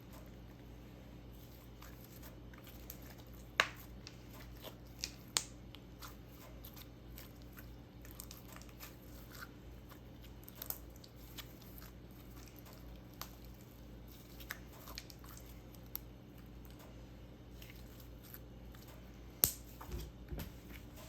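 Glittery slime being stretched and pressed by hand, giving scattered small clicks and pops, with a few louder pops about three and a half seconds in, around five seconds in and near the end, over a faint steady hum.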